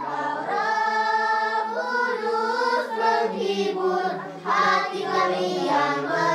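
Congregation singing a hymn together, with voices moving slowly between long, held notes.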